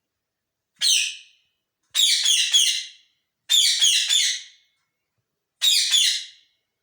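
A green parrot squawking: four bursts of harsh, high screeching calls, each about half a second to a second long, separated by brief silences.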